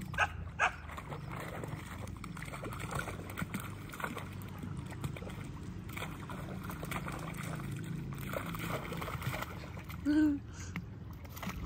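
Two puppies paddling in shallow lake water with light splashing and sloshing, over a steady low background rumble. Two sharp splashes in the first second, and a brief pitched cry about ten seconds in.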